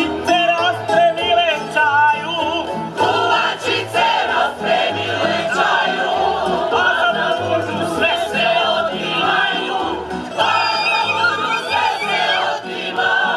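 Slavonian folk song sung by a group of voices over a tamburica band, plucked strings with a steady bass beat.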